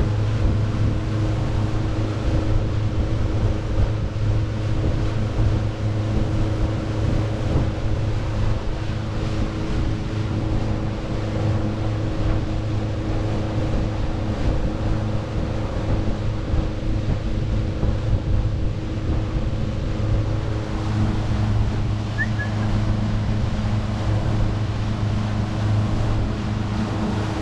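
Passenger launch's motor running steadily under way, a constant hum with rushing wind and water noise on board.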